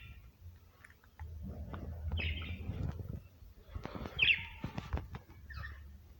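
Budgerigars chirping: three short chirps about two seconds apart, with a few sharp clicks near the middle and a low rumble underneath.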